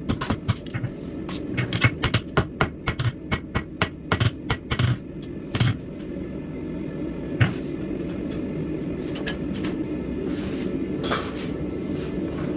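Hand hammer forging steel on an anvil: a run of ringing metal blows at about three a second for the first six seconds, then two single blows later on. A steady low hum runs underneath.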